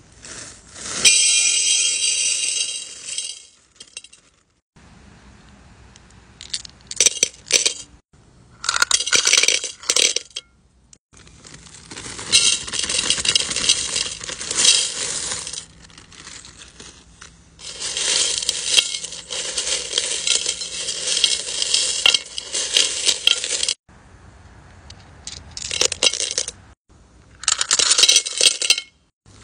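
Small tumbled crystal stones and chips poured from a plastic bag into a glazed ceramic bowl, clattering and clinking against the bowl and each other. The pours come one after another, each a few seconds long, with short pauses between.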